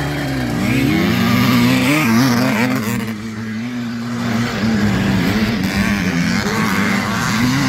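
Vintage motocross motorcycle engines racing on the track, revving up and down with a constantly wavering pitch as the riders work the throttle.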